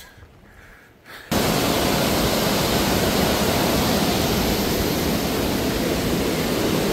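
Rushing water of a mountain creek cascade: a loud, steady rush that starts suddenly about a second in and holds even.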